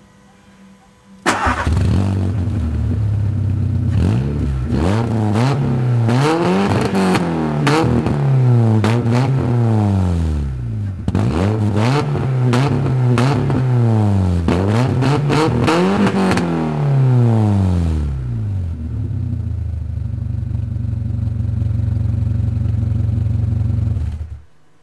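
VW Golf Mk3's 1.6 litre 75 PS four-cylinder petrol engine comes in suddenly about a second in, idles, then is revved again and again in two runs of quick rises and falls in pitch with a short dip between them. It settles back to a steady idle and stops near the end.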